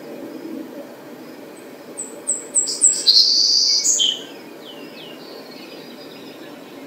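Savannah sparrow singing one song: a few thin, high chips that quicken, then a dry trill and a short lower note to close it. The song starts about two seconds in and lasts about two and a half seconds.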